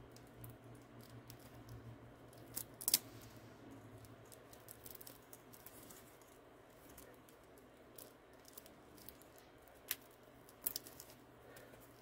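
Faint handling of a thin plastic protective wrap being worked off a watch strap's metal buckle by gloved fingers: soft crinkling with scattered small sharp clicks, the loudest a close pair about three seconds in and more near ten seconds.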